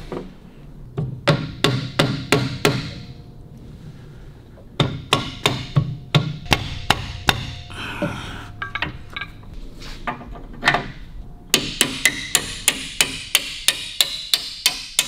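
A hammer tapping on metal in three runs of quick, light blows, a few a second, with pauses between the runs and one heavier knock just before the last run.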